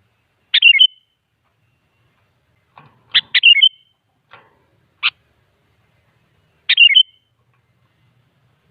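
Sooty-headed bulbul calling: short bubbly chirping phrases, four of them a couple of seconds apart, with a single clipped note between the second and third.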